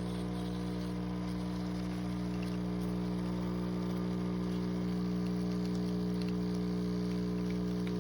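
20-bar espresso machine's pump running with a steady, even hum while it pushes water through the coffee for a double espresso, after the short pause that wets the grounds.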